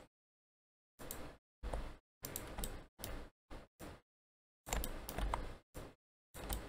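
Computer mouse clicks and keyboard taps in about nine short bursts, each cutting off into dead silence between them.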